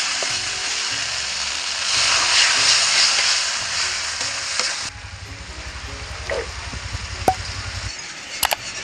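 Ground spice masala sizzling in hot mustard oil in a steel kadai while being stirred with a spatula. The sizzle cuts off abruptly about five seconds in, leaving a quieter low hum with a few scrapes and clicks.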